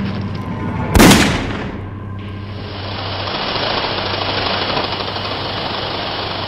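Film sound effect of a single loud gunshot about a second in, dying away over about a second. A steady rushing noise with a low hum beneath follows.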